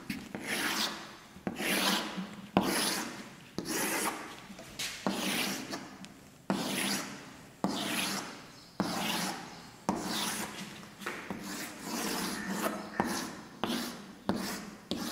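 Chalk scraping across a blackboard as long straight lines are drawn, one stroke after another about once a second, each starting with a sharp tap of the chalk against the board.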